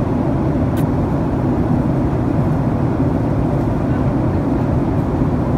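Steady low drone of an airliner heard inside the passenger cabin, with a single brief click about a second in.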